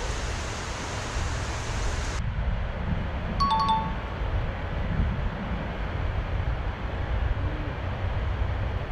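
Steady rush of river water under wind buffeting the microphone. About three and a half seconds in, a brief two-tone chime sounds.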